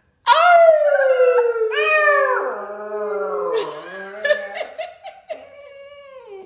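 Siberian husky puppy howling: a long howl falling in pitch about a quarter second in, a second howl starting near two seconds in, then quieter, shorter whining calls.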